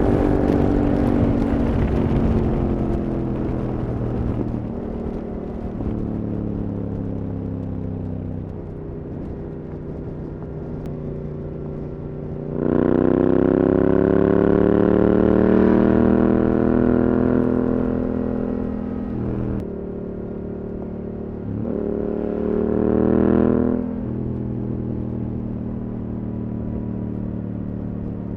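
Yamaha R7's parallel-twin engine through an Akrapovič exhaust on the move. The engine note falls off for the first several seconds, then comes two loud accelerations with rising pitch, a long one starting a little under halfway in and a shorter one near the end, each dropping back to a lower, steadier note.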